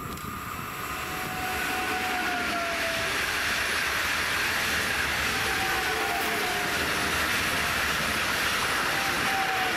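Two coupled Stadler FLIRT electric multiple units (BRB class 1430) pulling out of the station and passing close by: a steady rush and rumble of wheels on rail that builds over the first second or two, with a faint whine that dips slightly in pitch.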